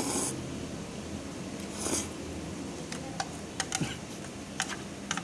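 Noodles slurped up through the lips at the start and again about two seconds in, followed by light clicks of wooden chopsticks against the steel tray while picking up more noodles. A wall fan hums steadily underneath.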